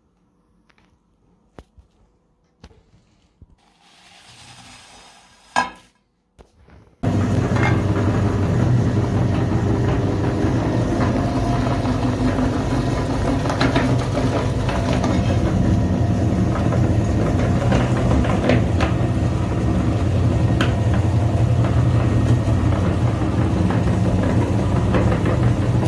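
A few light clicks and a knock, then an electric grinder is switched on about seven seconds in. It runs loud and steady, with a low hum and sharp crackles of material being crushed.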